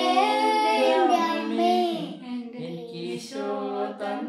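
A woman and a child singing a Malayalam Marian hymn unaccompanied, holding long, gliding notes; the voices drop briefly about two seconds in and then sing on.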